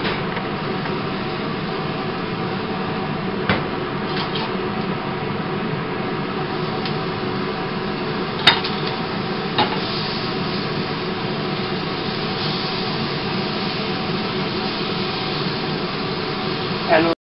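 Steady hissing noise of a gas stove with pancakes frying in two pans on it, broken by three short sharp knocks of utensils against the pans. The noise stops abruptly near the end.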